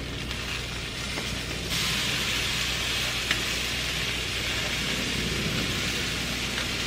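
Chicken sizzling on a hot gas grill grate as the pieces are turned with tongs. The sizzle gets louder about two seconds in, with a single click midway.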